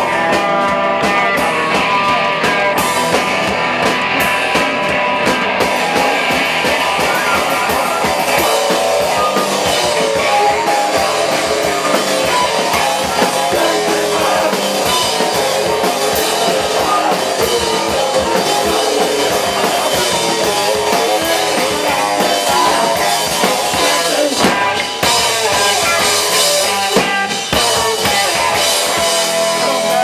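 A live rock band playing loudly, with a drum kit, guitar and flute.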